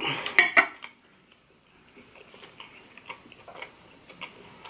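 A glass of ice water set down on a marble tabletop, the glass knocking on the stone and the ice clinking in a quick cluster during the first second. Faint scattered mouth clicks follow as he licks icing from his fingers.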